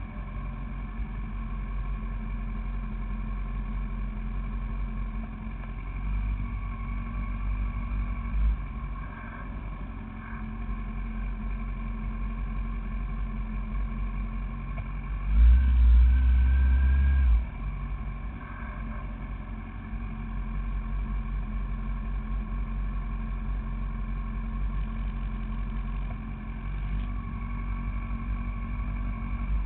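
Honda CBR1000RR's inline-four engine idling, heard close up through a camera mounted on its clutch cover. About fifteen seconds in, a louder low rumble lasts about two seconds.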